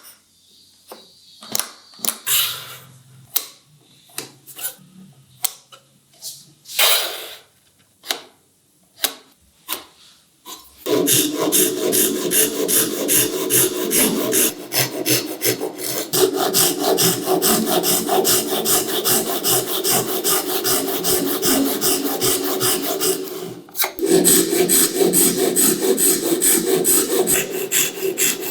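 A few light knocks and clicks of wood being handled, then wood worked by hand with a rapid, steady run of back-and-forth strokes that stops briefly near the end and resumes.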